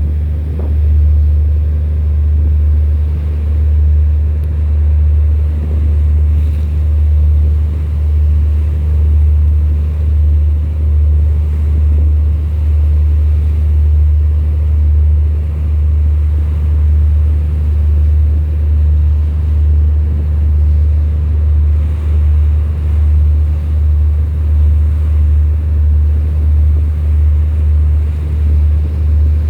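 Low, steady boat engine rumble that swells and fades about once a second, with a faint wash of water.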